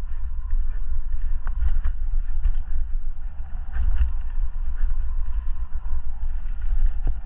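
Wind rumbling on the microphone of a moving rider, with scattered clicks and rattles.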